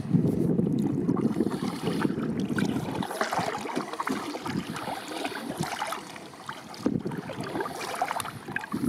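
Water splashing and lapping around a kayak, with many small irregular splashes. Wind rumbles on the microphone during the first three seconds or so.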